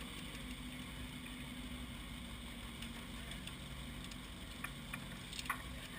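Faint, steady low hum of an off-road race car's engine idling, with a few light clicks near the end.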